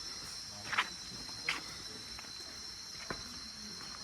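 Steady high-pitched drone of an insect chorus, with a few brief sharp taps about a second in, at a second and a half and near three seconds.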